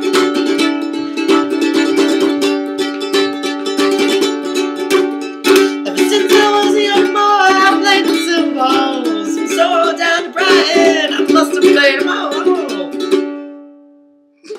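Ukulele strummed in a steady rhythm, with a woman singing over it from about halfway through. The music fades out near the end.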